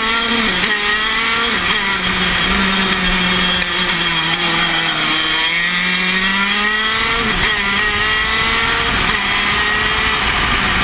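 Single-cylinder two-stroke 125cc engine of a KZ125 shifter kart running hard at speed. Its pitch climbs and drops over and over, with several sudden falls as it shifts gear and brakes for corners. Heard from onboard the kart.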